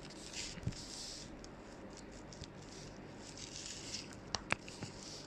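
Quiet room tone with a few faint clicks and taps, the two sharpest close together just after four seconds.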